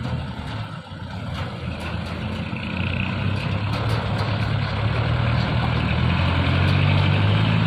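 A heavy truck's diesel engine running and drawing closer, growing steadily louder, with the engine note rising slightly near the end.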